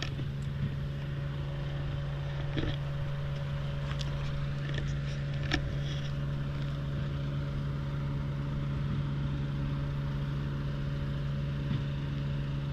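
A steady low motor hum that holds an even pitch, with a few faint clicks over it.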